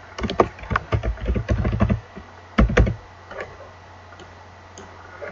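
Typing on a computer keyboard: a quick run of keystrokes for about two seconds, two louder key strikes just before the three-second mark, then a few faint clicks. A steady low hum runs underneath.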